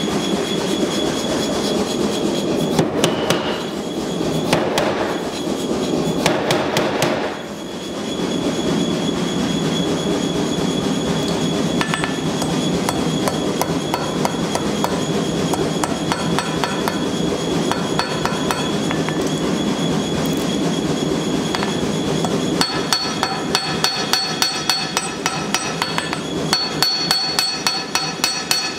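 Ball-peen hammer striking hot steel on an anvil while a knife blank is forged: a few blows early on, then a rapid, even run of ringing blows in the last several seconds. Under it the forge keeps up a steady roar.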